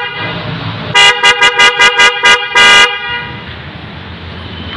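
Car horn on a Wuling Confero, newly fitted and being tested: a rapid run of about eight toots, the first and last held a little longer, over a steady low hum.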